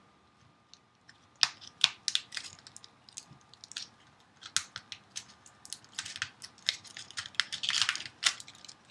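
Aluminum foil crinkling and crackling as it is peeled off a wire armature, in irregular sharp crackles starting about a second and a half in.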